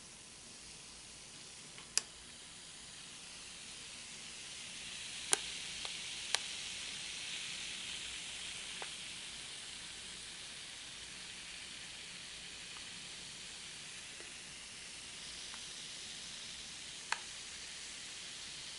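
Self-inflating foil balloon pouch fizzing as the reaction inside gives off gas: a faint, steady hiss that grows louder about four seconds in. A few sharp clicks come from the pouch as it is handled.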